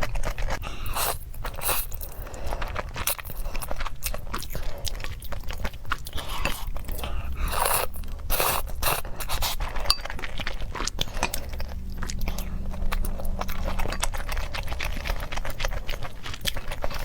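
Close-miked eating sounds of spicy instant noodles being chewed, a dense stream of small wet clicks and crackles, with some scraping.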